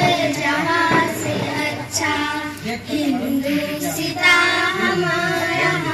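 A child singing, with some notes held for a second or so.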